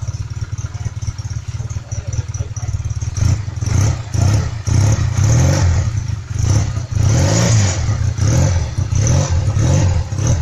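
Honda CB125 motorcycle engine idling, then given a series of short throttle blips from about three seconds in, each rising and falling in pitch.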